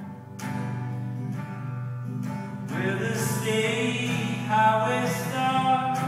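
Acoustic guitar strummed steadily, with a man's singing voice coming in a little before halfway through.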